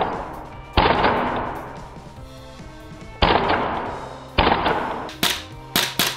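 Tokyo Marui M4A1 MWS gas blowback airsoft rifle firing single shots. Each shot is a sudden sharp crack of the bolt cycling with a short fading tail. There are about half a dozen shots, spaced one to two seconds apart at first and coming faster near the end. The rifle is running on weak gas.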